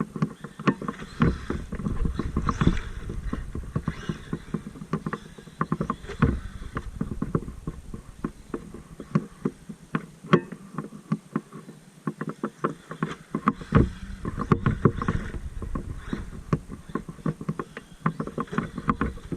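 Traxxas MAXX RC monster truck driving over rough ground: a dense, irregular clatter of knocks and clicks from tyres and chassis, over a low rumble that drops away briefly about halfway through.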